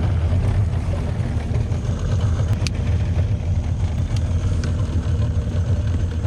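55-horsepower boat engine idling steadily, a low drone, with a few light clicks about midway.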